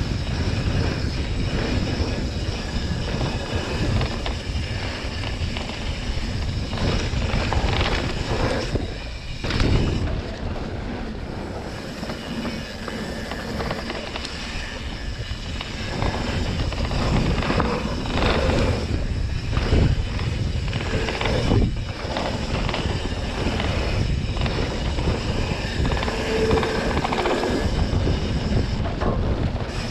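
Mountain bike descending a dry dirt trail: wind rushing over the action camera's microphone, tyres rolling on the dirt, and the bike rattling over bumps. It goes quieter for a few seconds partway through, then picks up again.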